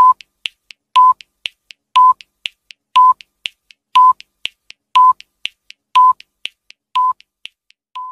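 Countdown timer sound effect: a short, high, steady beep once a second, nine times, with faint quick ticks between the beeps. The last beep is softer.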